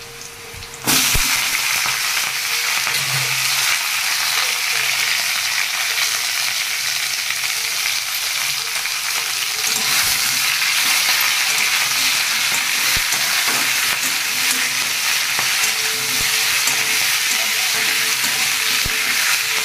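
Malabar spinach and potato pieces frying in hot oil in a kadai: a loud, steady sizzle that starts suddenly about a second in, while a spatula stirs them with an occasional light knock on the pan.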